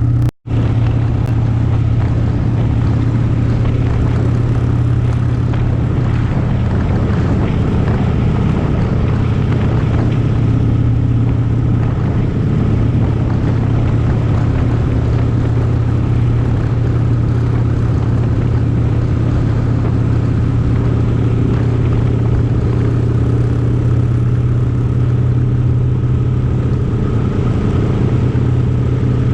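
Steady low drone of a running vehicle, an unbroken hum with road-like noise over it.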